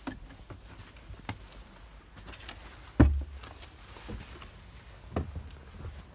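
Irregular knocks and thuds of someone climbing a wooden ladder, with one heavy thump about three seconds in.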